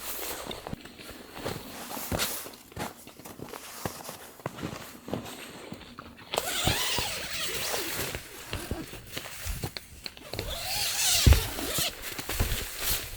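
Footsteps and gear handling: a run of separate knocks and rustles that changes abruptly about six seconds in to a denser, hissier rustling, with a heavy thump near the end.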